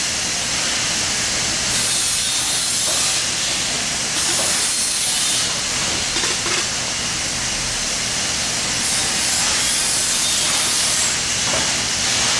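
Background noise from a working duct manufacturing shop: a steady machinery hum, with hissing that swells several times for a second or two at a time.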